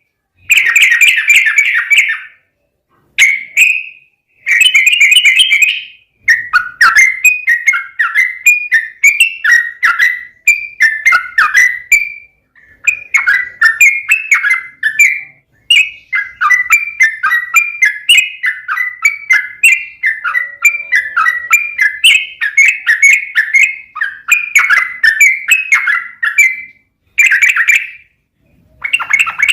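Yellow-vented bulbul (trucukan) singing loudly in bubbly, chattering phrases. A few short bursts separated by pauses give way, about six seconds in, to a long run of quick repeated notes, followed by a brief pause and another burst near the end.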